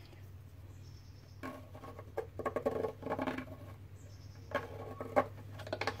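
Pencil scratching on masking tape as it is drawn around a socket, in two spells of quick scratchy strokes: one from about a second and a half in, another near four and a half seconds. A steady low hum runs underneath.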